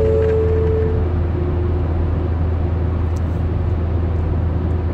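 Steady car-cabin road noise while driving through a road tunnel: a low drone of engine and tyres. In the first second and a half the last notes of a falling tone fade out.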